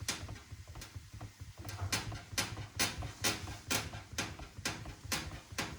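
Atlant 80C1214-01 washing machine squeaking as its drum turns slowly in a wash cycle: a sharp squeak about twice a second, evenly repeated over a low hum. The owner cannot tell whether the squeak comes from a drum shock absorber or the cabinet.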